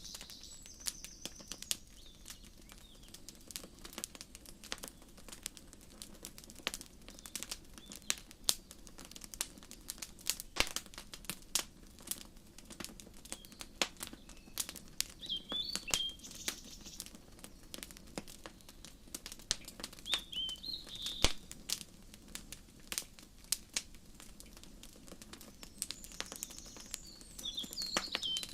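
Wood fire crackling, with frequent sharp pops and snaps scattered irregularly throughout. Small birds chirp briefly a few times: near the start, about halfway through, and again near the end.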